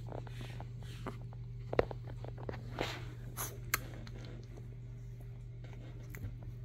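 Small clicks and soft rustling as a chihuahua puppy mouths and chews on a finger and squirms on a fleece blanket, with one sharper click about two seconds in, over a steady low hum.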